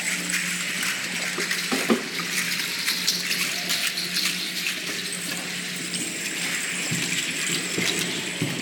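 Aztec dancers' ankle rattles shaken with their steps: a dense, continuous rustling hiss of many small clicks. A few dull thumps come through, one about two seconds in and more near the end.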